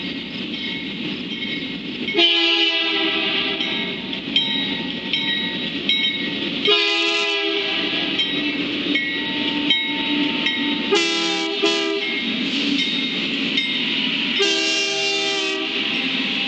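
Lead BNSF diesel locomotive's multi-chime air horn sounding for the grade crossing: two long blasts, a short broken one, then a long one near the end. A crossing bell rings steadily and the diesels rumble as the train approaches.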